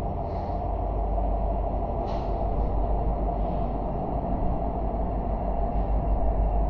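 Two EMD SD70ACe diesel-electric locomotives passing close by, their 16-cylinder two-stroke diesel engines and rolling wheels making a steady low rumble that grows slightly louder as the units go by.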